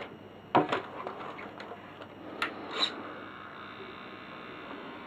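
A few sharp clicks and light knocks from hands handling the plastic-bodied RC model truck. The loudest comes about half a second in, and two smaller ones come near the middle, over a faint steady hum.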